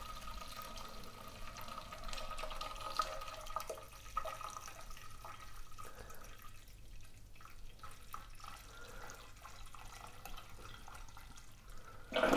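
Wort trickling from a brewing kettle's tap down a thin hose into a pot of liquid, a faint steady dripping and splashing. These are the first cloudy runnings, collected while the grain filter bed forms.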